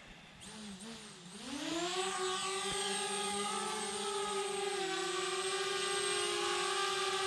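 DJI Spark quadcopter's motors and propellers spinning up for takeoff: a wavering whine that rises in pitch and grows louder over the first couple of seconds, then settles into a steady high whine as the drone hovers.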